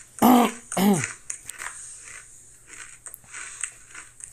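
A man clearing his throat twice in quick succession, two short, loud, pitched vocal sounds in the first second, followed by faint clicks.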